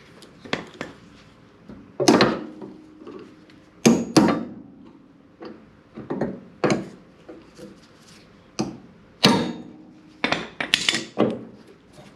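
Hammer blows on a steel truck door hinge: about ten sharp, irregularly spaced strikes, some ringing briefly. They come while the old hinge pin and bushings are being knocked out.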